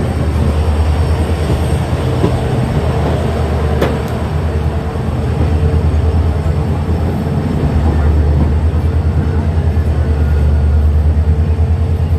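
WDP4D diesel locomotive's 16-cylinder two-stroke EMD engine humming steadily with a fast low throb, heard from the coach coupled behind it. There is a short sharp click about four seconds in.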